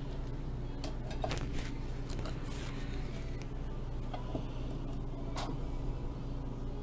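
Steady low machine hum with a handful of light clicks and taps from a hand handling a measuring rod against stacked wooden pieces.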